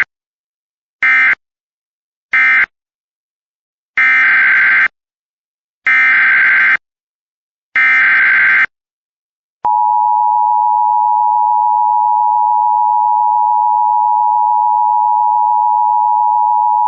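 Emergency Alert System tones. First come short end-of-message data bursts closing one alert, then three longer SAME header data bursts about two seconds apart, each a raspy warbling digital chirp. About a second later the steady two-tone EAS attention signal starts and holds for about eight seconds, announcing the next alert.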